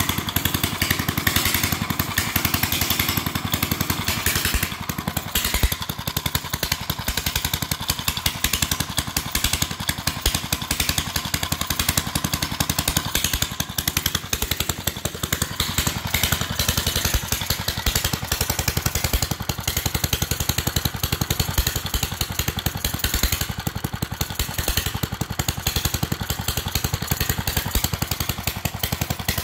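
1946 Fairbanks Morse Z Style D 2 HP single-cylinder, magneto-fired, throttle-governed engine running steadily on its own, firing evenly throughout; its camshaft bearing is in need of attention.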